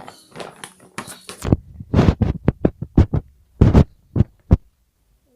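Close handling noise: about ten soft, heavy thumps and knocks in quick succession, like objects being handled and squeezed right at the microphone. They stop suddenly near the end.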